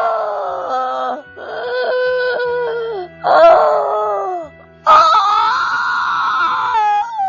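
A voice wailing and moaning in four long, high-pitched anguished cries, each a second or two long with sliding pitch, over a steady sustained music drone.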